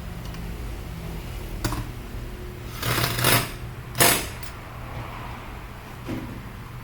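Metal parts being handled at a workbench: a click, a brief scraping rattle, then a sharp metallic knock, the loudest sound, about four seconds in, and a lighter knock near the end, over a steady low hum of shop machinery.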